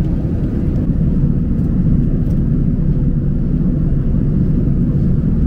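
Airbus A380 cabin noise in cruise flight, heard from a passenger seat: a steady low rumble of engines and air rushing past the fuselage, even in level throughout.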